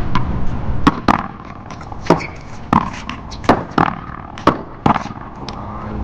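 A one-wall paddleball rally: paddles striking the ball and the ball smacking off the wall, about eight sharp hits spaced roughly half a second apart, stopping about five seconds in.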